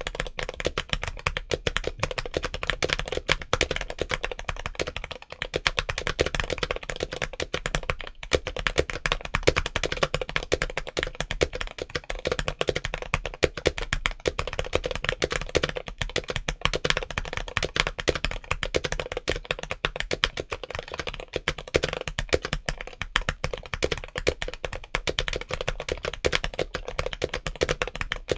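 Fast, continuous typing on a modded James Donkey A3 75% mechanical keyboard with Gateron Orange switches and MT3 doubleshot ABS keycaps. It is a dense, crunchy stream of keystrokes, with a brief pause about eight seconds in.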